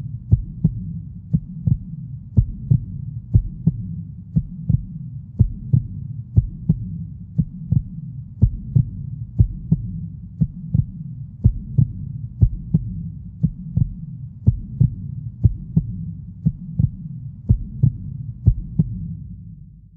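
Slow, steady heartbeat-like double thumps, about one beat a second, over a low hum, fading out near the end.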